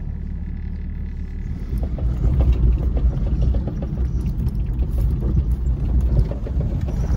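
Jeep Cherokee XJ driving over a rough dirt trail, heard from inside the cabin: a low engine and road rumble with frequent knocks and rattles from the bumps, growing louder about two seconds in.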